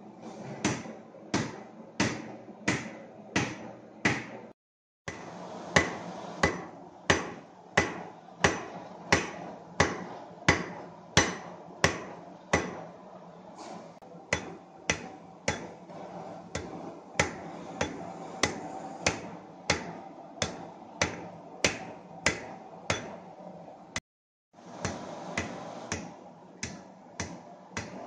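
Hammers striking glowing hot steel on an anvil in a steady forging rhythm, about two blows a second, over the steady roar of a propane gas forge. The blows break off twice for a moment of silence.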